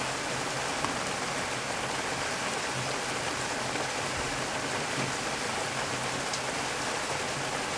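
Heavy rain falling steadily, an even hiss of drops on surfaces.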